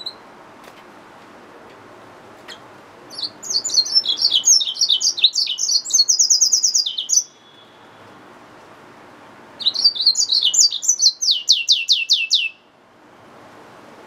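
Caged yellow-fronted canary mule (hybrid finch) singing two song phrases, the first about three seconds in and the second near ten seconds. Each is a quick run of varied high chirps that ends in a fast trill of repeated falling notes. A faint steady hiss lies underneath.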